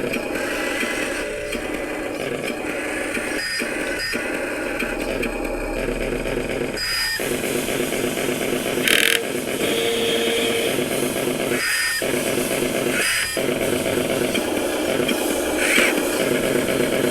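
Remote-control Scania 770S truck running as it is driven to couple with its trailer: a steady mechanical whirring that stops briefly about five times, with a few short hissy bursts in between.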